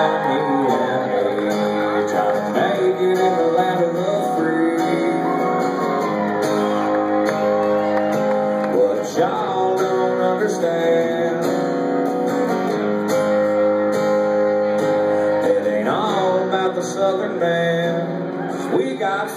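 Acoustic guitar strummed live, with a man singing over it: a country song.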